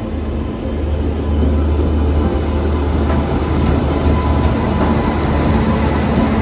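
Loud, steady rumble of train wheels on rails and rushing air, heard from the open doorway of a moving train, as a passenger train hauled by an electric locomotive passes on the adjacent track.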